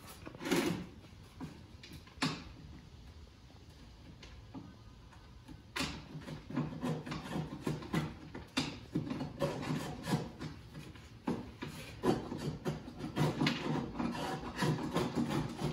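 Chisel scraping old glazing putty out of a wooden window sash, with two sharp knocks in the first few seconds, then short, quick scraping strokes that come thick and fast from about six seconds in. The putty is coming off easily.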